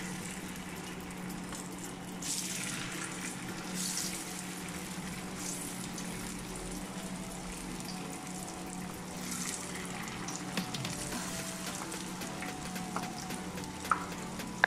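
Marinated chicken pieces frying in hot oil in a pan, a steady sizzle with brief louder flares of sizzling as more pieces are dropped in, over a steady low hum. A couple of sharp clicks near the end.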